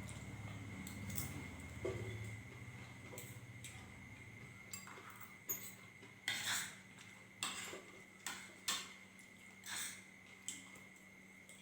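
Dishes and cutlery clinking and knocking as a meal is handled: a handful of sharp separate clinks in the second half, over a faint steady tone.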